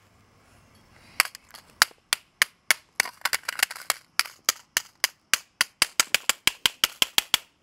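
A metal wrench striking a laptop hard drive lying on pavement, over and over. Sharp cracking hits, about four a second, begin about a second in.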